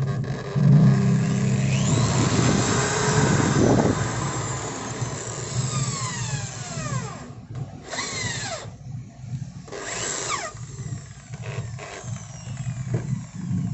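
Repaired 10 mm corded electric drill running with its chuck gripped by hand as a load test. It runs strongly for about four seconds, then slows with a falling pitch, with a few short spin-ups and coast-downs after. The chuck now turns with the motor instead of slipping, its worn pinion gear the fault that was found.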